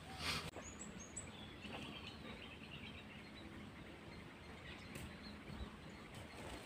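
Faint outdoor ambience: scattered high bird chirps over a low steady hum, opening with a brief noisy rustle.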